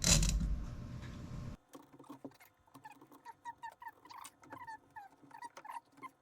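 Loud rustling handling noise for about the first second and a half, then a quick run of short, high squeaks, each dropping in pitch, several a second.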